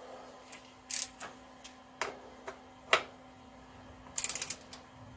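Ratcheting torque wrench tightening a motorcycle's primary case drain plug: single sharp ratchet clicks about a second apart, then a quick run of clicks near the end.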